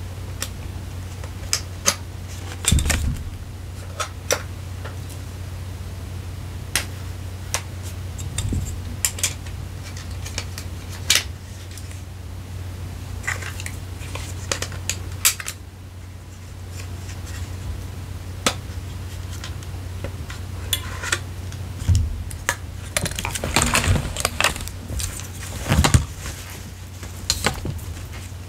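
Camera gear and packaging being handled by hand: irregular sharp clicks, taps and small knocks, with a denser run of clicks and rustling about 23 seconds in, over a steady low hum.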